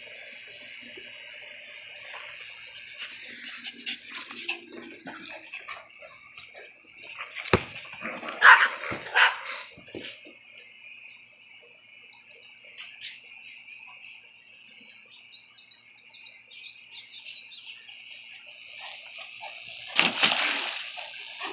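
A Great Pyrenees splashing into a shallow plastic kiddie pool near the end, a loud splash of water. A steady high insect drone runs underneath, and two short loud sounds come a little under halfway through.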